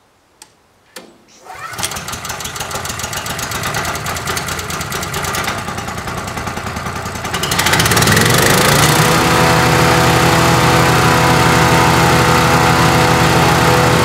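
Small four-stroke petrol engine on a BWM Pro100 wood chipper starting up: a couple of clicks, then it catches about a second and a half in and runs unevenly at low speed. About seven and a half seconds in it rises to a louder, steady high-speed run, ready for chipping.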